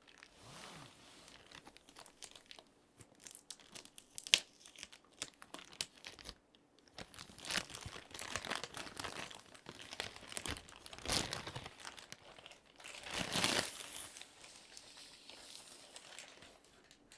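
Keyboard packaging being handled and opened: crinkling, rustling and tearing of wrapping in short bursts, with scattered clicks and a sharp knock about four seconds in.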